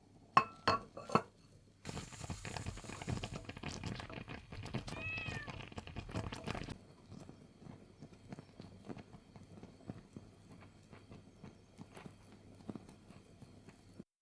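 Domestic cat meowing: three short, loud meows in the first second, then another meow, rising and falling, about five seconds in. Rustling noise and scattered small clicks run alongside.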